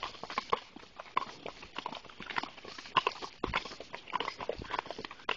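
Hooves walking on a gravel trail: a clip-clop of footfalls, roughly two knocks a second.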